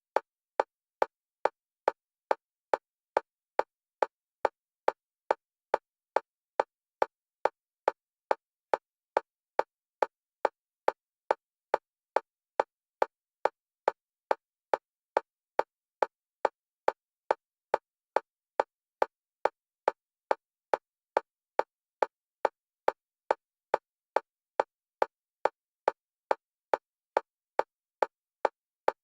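Very fast EMDR metronome clicks, one pitch, alternating between the left and right channels for bilateral stimulation. Short, identical clicks at an even pace of about two and a half a second.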